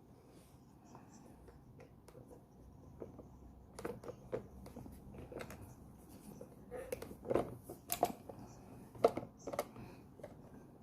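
Parts of a new coffee maker being handled: scattered light clicks and knocks, sparse at first, then more frequent from about four seconds in, with one sharper click near the end.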